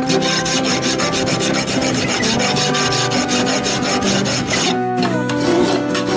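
Steel hand file rasping along a knife blade in repeated strokes, with a short pause about five seconds in: the edge is being filed thinner.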